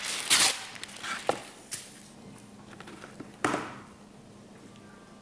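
A sheet of Cut-Rite wax paper pulled from its roll and torn off with a sharp rip about half a second in. A few light clicks follow, then a short paper rustle or scrape about three and a half seconds in.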